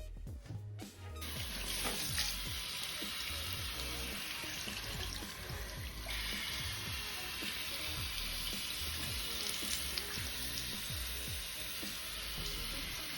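Water running from a salon shampoo-station shower head, starting about a second in, with background music playing underneath.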